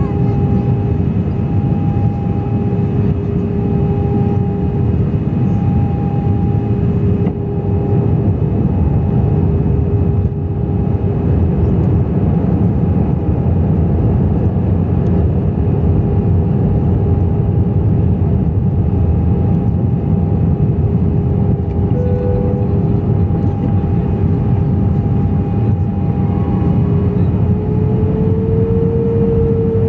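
Jet airliner cabin noise on descent: a loud, steady rumble of airflow and engines with a steady engine hum running through it. The hum rises slightly in pitch near the end.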